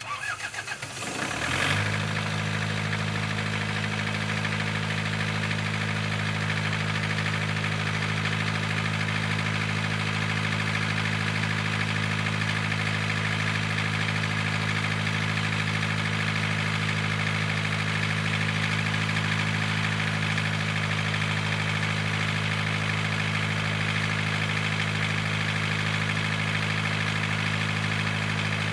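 Isuzu C223 four-cylinder diesel engine of an open generator set starting up, catching within about two seconds, then running at a steady speed with the usual diesel knock.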